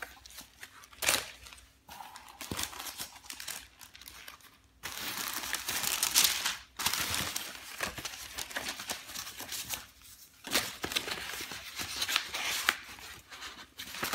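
Paper wrapping sheets rustling and crinkling as they are folded back and handled, in uneven bursts with short pauses; the longest, loudest stretch comes about five seconds in.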